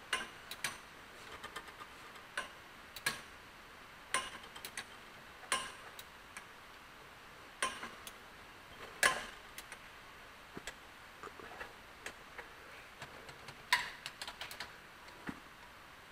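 Ratchet wrench clicking in short, irregular bursts as bolts on a tractor engine are snugged up by hand, with a sharp metal click every second or so. The loudest click comes about nine seconds in.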